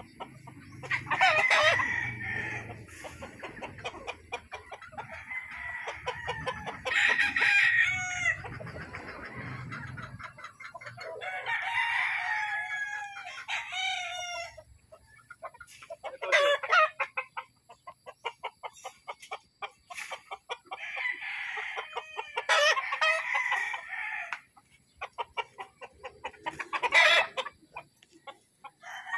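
Several gamecocks crowing one after another, about six crows in all, with clucking between them. A low hum runs underneath until about ten seconds in.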